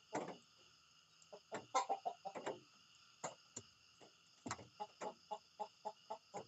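Chickens clucking: a string of short clucks, settling in the second half into an even run of about three a second, over a steady high-pitched hum.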